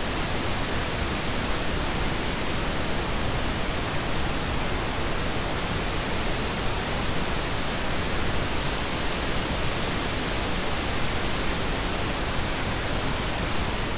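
Steady pink noise test signal. Its top end shifts slightly every three seconds or so as a narrow parametric EQ band at 10 kHz is switched between +3 dB, the original and −3 dB: the boosted version has more "air", the cut one sounds dull.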